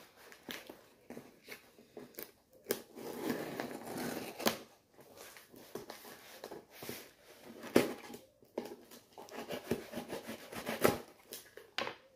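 Knife cutting and slitting packing tape on a cardboard box, with cardboard scraping, crinkling and a few sharp knocks against the box.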